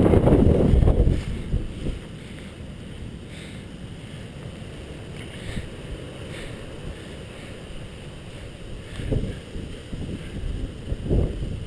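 Wind buffeting the microphone with a low rumble that dies away about a second in, then a steady low outdoor hiss with a few faint ticks and two brief low thumps near the end.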